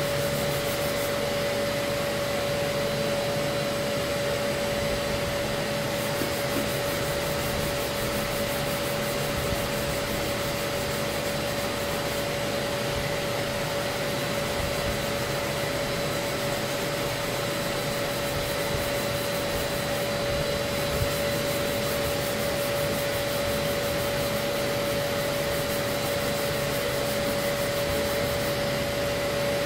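Rupes random-orbital sander running steadily against body filler, its dust-extraction vacuum drawing through the hose: a constant whine over an even hiss.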